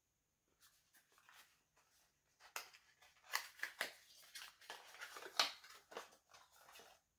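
Small cardboard product box being opened and a cosmetic jar slid out: an irregular run of scraping, crinkling and tapping of packaging, loudest in the middle.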